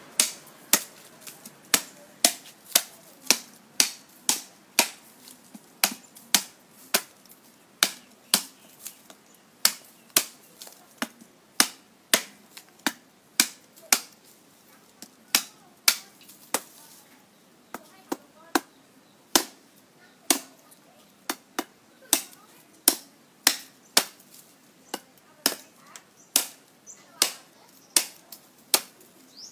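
A steel chopping knife biting repeatedly into a green bamboo stalk laid on a wooden chopping stump. The chops are sharp and crisp and come steadily at about one and a half a second.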